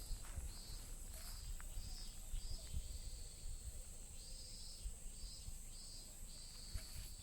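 Outdoor ambience: short high chirps repeating about twice a second over a steady high drone and a low rumble, with a few sharp clicks.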